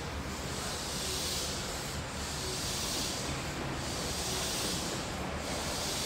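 Steady hiss of a Toei 6300-series subway train standing at the platform with its doors open, swelling and easing gently about every second and a half.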